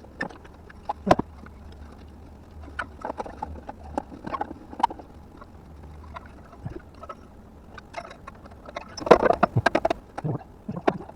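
Scattered clicks and knocks of hands and tools working on parts and wiring under a car, with a denser flurry of them about nine seconds in, over a faint low hum.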